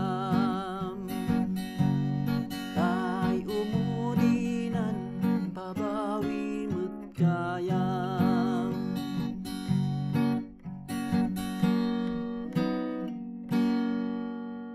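A man singing with vibrato over a strummed acoustic guitar, picked up by a LENSGO KD96 cardioid condenser microphone as a sound test. The last chord rings out and fades near the end.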